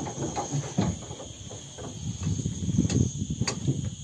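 Insects buzzing steadily in high, thin, unbroken tones, with irregular low knocks and rumbles underneath.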